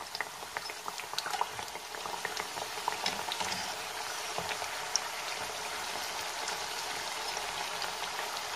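Pieces of pişi dough frying in hot oil in a shallow pan: a steady sizzle with many small crackles and pops.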